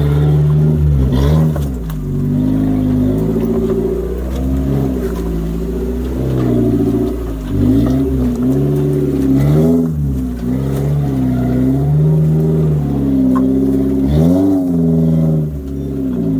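Four-wheel drive's engine revving up and down over and over, its pitch rising and falling every second or two, as the driver works the throttle up a rocky step.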